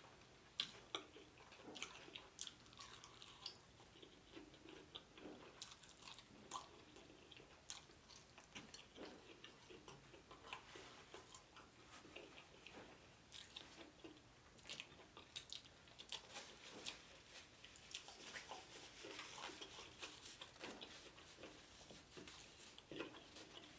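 Faint close-miked chewing and biting of crispy Chinese fried chicken, with scattered crunches and wet mouth clicks.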